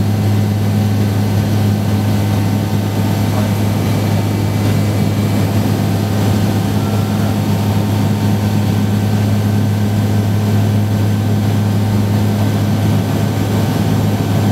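Cabin noise of a Jetstream 31's twin turboprops in cruise: a steady low propeller hum with a second, higher tone above it, over an even hiss of airflow.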